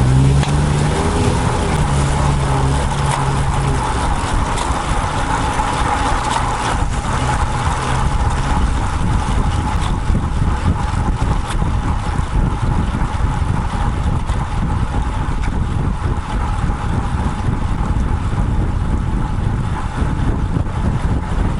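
Wind buffeting the microphone of a camera mounted on a moving road bike, a steady low rumble, with road traffic around it. A motor vehicle's engine is heard alongside for the first few seconds and then fades out.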